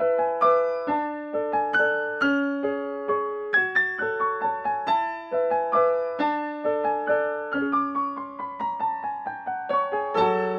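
Background piano music: a gentle melody of single struck notes, with a run of notes stepping downward in the second half.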